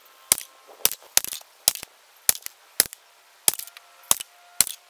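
CMMG Banshee .45 ACP firing 230-grain AAC XTP hollow-point rounds in a steady string of single shots, about nine sharp cracks at roughly two a second.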